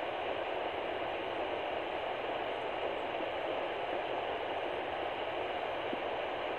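Fetal doppler speaker giving a steady static hiss as the probe searches without picking up the heartbeat.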